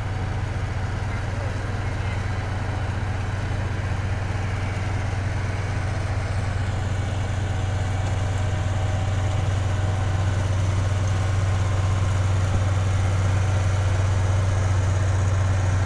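Bulldozer's diesel engine running steadily, a low drone that grows slightly louder over the second half.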